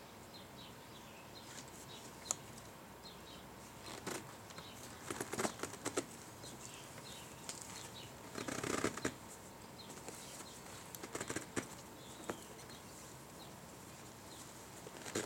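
Nylon tie-down strap being pulled through its buckles and D-shackles to cinch a dry bag onto a motorcycle's pillion seat. It comes in bursts of rustling webbing with sharp buckle clicks, the longest scrape a little past the middle.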